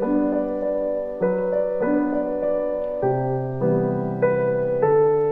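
Background music: a soft piano tune with slow, steady chord changes.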